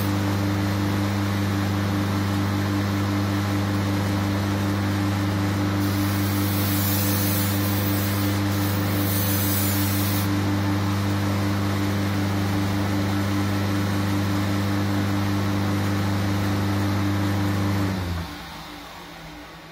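Belt grinder running with a steady hum while the edge of a steel shashka blade is ground on its abrasive belt, throwing sparks; the grinding hiss is strongest for a few seconds in the middle. About 18 seconds in the motor hum cuts off and the machine runs down.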